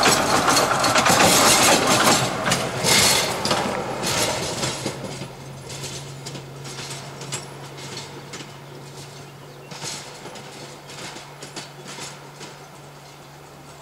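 Narrow-gauge forest railway train on the move. Over the first four seconds there is a loud rumble with clanking of the wagons, which then fades away, leaving a steady low hum and scattered clicks.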